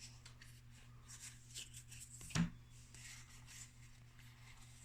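Faint rustling and sliding of Magic: The Gathering trading cards being handled and flipped through, over a steady low electrical hum. A brief, louder sound comes about two and a half seconds in.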